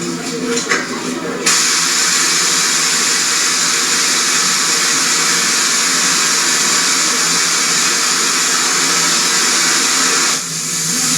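A loud, steady hiss that starts abruptly about a second and a half in and cuts off sharply near the end.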